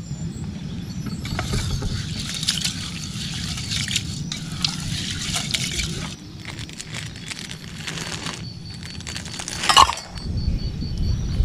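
Ice cubes tipped from a plastic bag into a stainless steel mug: a run of crackling and clinking ice against the steel and the bag, with one sharp, loud clink near the end as cubes spill out. A steady low rumble runs underneath.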